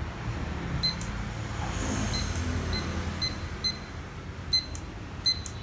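Laser level giving a series of short high electronic beeps at one pitch, some with sharp clicks, over a steady low hum.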